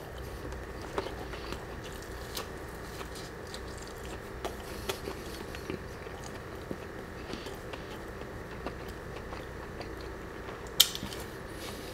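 A person chewing fried chicken tenders close to the microphone, making quiet mouth sounds with small scattered clicks and one sharp click near the end.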